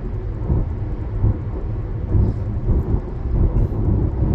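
Car driving at highway speed, heard from inside the cabin: a steady low rumble of road and engine noise that swells unevenly.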